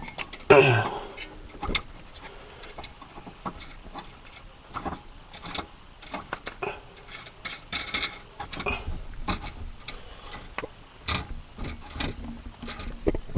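Irregular light metallic clicks and taps of hand tools and tie rod parts being handled, with a louder clatter about half a second in.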